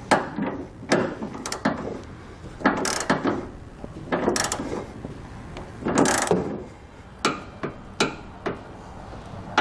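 Torque wrench ratcheting on the nerf bar bracket bolts, in short irregular strokes with sharp clicks and metal clinks as a socket is changed and fitted.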